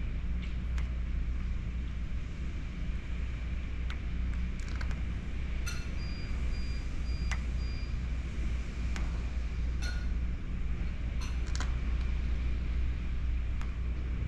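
Hurricane wind and heavy rain: a steady low rumble under an even hiss of rain, with scattered sharp clicks and raps on the screen enclosure.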